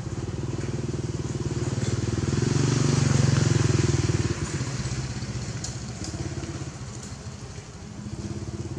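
A motorcycle engine running and passing by. It grows louder to a peak about three seconds in, then fades somewhat.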